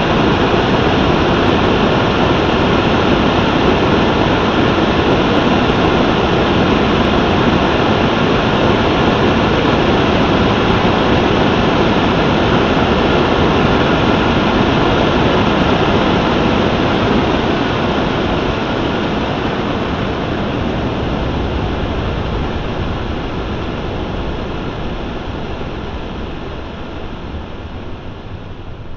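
Steady, loud rushing roar of a burning Estes black-powder model rocket engine's exhaust. It fades away gradually over the last ten seconds or so as the burn dies down.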